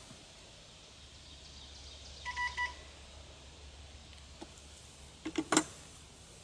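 Wooden top bars of a top bar hive being worked loose with a hive tool: a brief two-part high squeak a couple of seconds in, then a quick cluster of sharp cracks and knocks about five seconds in. The bar is stuck, either tightly fitted or sealed up by the bees.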